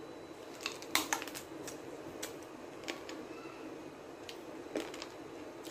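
Someone biting and chewing a raw kothimba fruit, a small crisp wild melon: scattered crisp crunches at an uneven pace over a low room hum.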